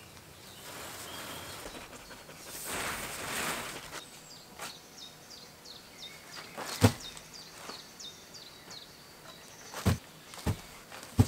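A small bird chirping over and over, short high notes about two a second, over a rustling hiss in the first few seconds. A few sharp knocks, the loudest sounds, come at about seven and ten seconds in and again at the very end.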